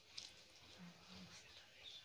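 Faint eating sounds: a few soft mouth clicks while food is chewed, with a brief low hum about a second in.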